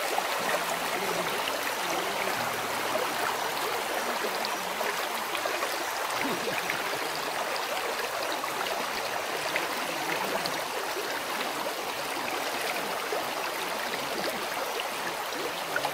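Shallow river running fast over a pebble bed: a steady rush of water.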